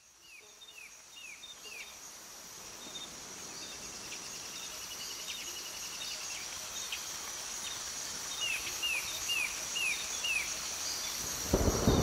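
Tropical rainforest ambience fading in: a steady high insect drone, with a bird giving a run of about five short falling whistles, twice. Near the end a loud low rumble of thunder breaks in.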